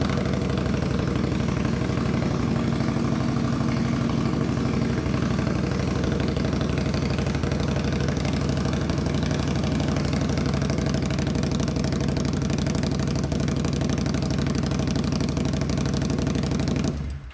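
2021 Indian Scout Bobber Twenty's 1133 cc liquid-cooled V-twin idling steadily soon after a cold start, through Vance & Hines Twin Slash slip-on mufflers still fitted with their stock baffles, really loud. The engine is switched off near the end and the sound cuts out.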